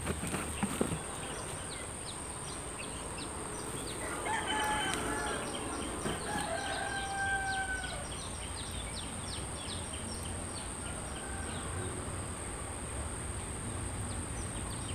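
A rooster crowing once, starting about four seconds in and ending in a long held note, over a steady high insect whine and rapid chirping.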